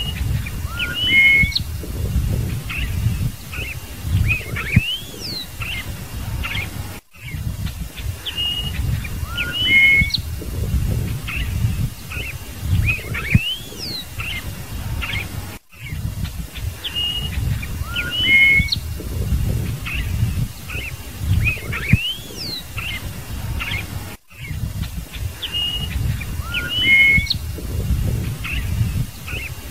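Scarlet-headed blackbird singing a phrase of clear whistled notes, with a rising slur and a high falling whistle. The phrase repeats about every eight and a half seconds, with a brief break before each repeat. A heavy low rumble runs underneath.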